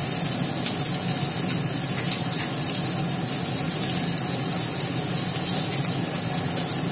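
Onion and capsicum chunks frying in oil in a wok over a high flame, a steady, even sizzle.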